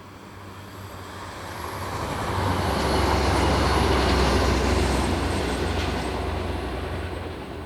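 A train passing at speed, swelling to its loudest about three to four seconds in, then fading away.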